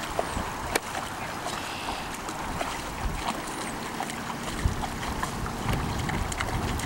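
A dog wading through a shallow creek, its legs splashing the water in a few sharp bursts, with wind rumbling on the microphone.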